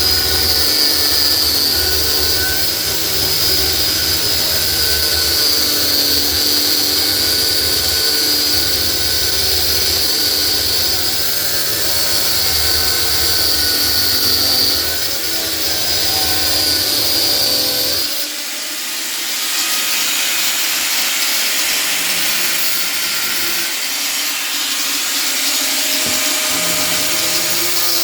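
Electric power tool running continuously with a steady motor whine, used to cut or drill free a mixer tap that can't be taken off the usual way. About two-thirds of the way through, the low hum drops out and a harsher, hissier grinding or cutting sound takes over.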